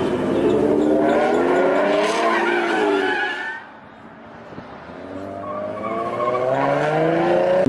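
Muscle car engines revving hard as the cars accelerate past, one after another: the first loud and wavering in pitch for about three and a half seconds, then dropping away, and a second engine rising in pitch and getting louder from about five seconds in.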